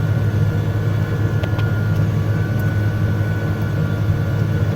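Case IH MX210 tractor's diesel engine running steadily under load while pulling a moldboard plow, heard from inside the cab: a constant low drone with a faint steady high whine over it.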